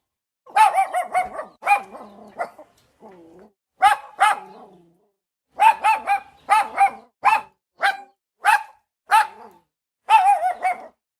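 A small dog barking over and over in short, high-pitched yaps, with a quick run of them through the middle.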